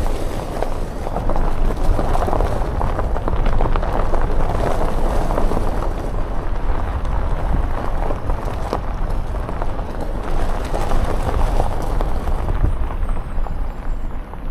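A car driving over a gravel road, heard from inside the cabin: a steady rumble of tyres and road noise with a dense crackle of gravel.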